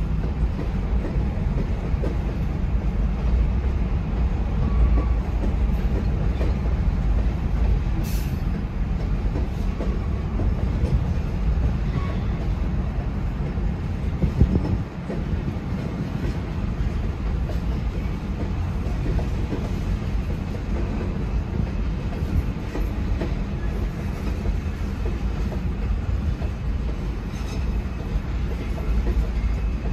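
Freight train of covered hoppers and tank cars rolling through a grade crossing: wheels running on the rails with a steady low rumble, and a single sharp knock about eight seconds in.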